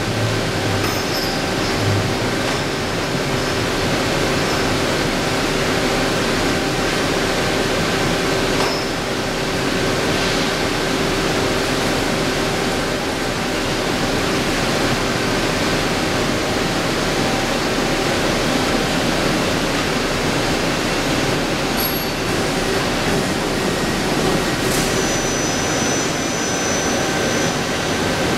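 HONOR Seiki VL-66A vertical lathe running while it turns a brake drum: a steady, even machine whir with a constant hum-like tone through it.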